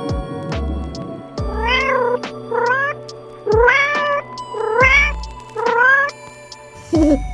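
A domestic cat meowing five times, each meow a short call that bends in pitch, with background music playing under it.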